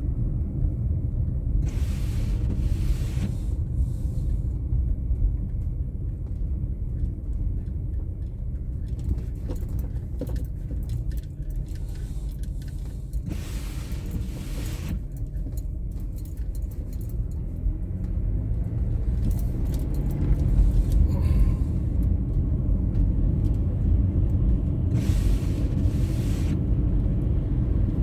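Car driving on snowy roads: a steady low rumble of engine and tyres. A rushing hiss swells and fades three times, and scattered light clicks and rattles come in the middle.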